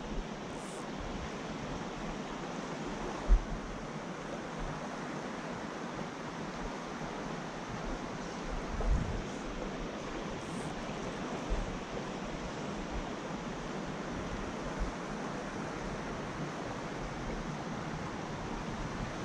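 Steady rushing of a shallow creek running over a riffle, with a couple of low thumps on the microphone, the sharpest about three seconds in.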